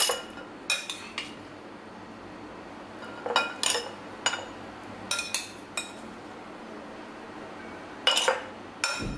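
Spoon clinking against a glass jar and bowl as sliced ginger pickle is spooned into the jar: a few clusters of ringing taps with quiet pauses between.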